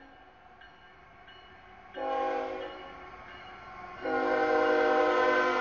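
CSX freight locomotive's air horn sounding for the grade crossing as the train approaches: a blast about two seconds in, then a longer, louder blast from about four seconds on.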